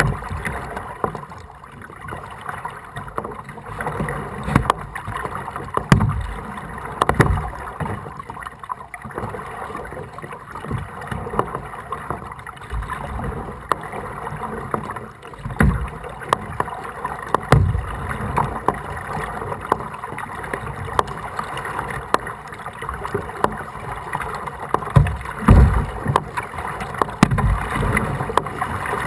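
Kayak being paddled through floodwater: steady splashing and lapping of water, with low thumps every few seconds, often in pairs.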